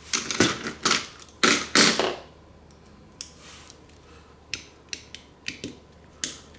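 A small precision screwdriver and its metal bits being handled: a few loud clattering and scraping sounds in the first two seconds, then a run of about seven light, sharp clicks, irregularly spaced.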